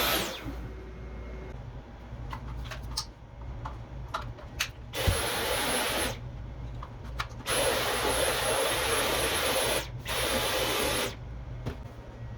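Dyson V11 cordless stick vacuum switching off, its high motor whine falling away, then clicks and knocks of handling. It is then run in three short bursts, about a second, two seconds and a second long, each a rush of air with a high motor whine.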